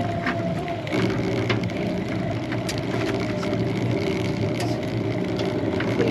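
A motor running steadily aboard a boat while a prawn pot line is hauled up, with a held tone over the drone. Scattered light clicks and crackles sound on top throughout.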